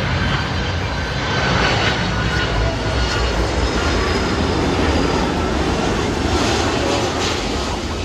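Jet engines of a Boeing 767 freighter on final landing approach, gear down: a loud, steady rumble with a faint whine over it.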